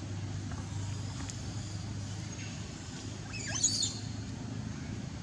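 A baby monkey gives a brief burst of shrill squealing cries about three and a half seconds in, over a steady low engine rumble.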